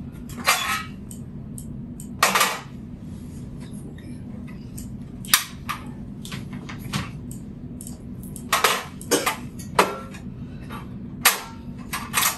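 Portable butane stove's igniter snapping sharply about eight times at uneven intervals as the burner is tried again and again after its flame went out. The flame had cut out, which the cook puts down to the stove having overheated.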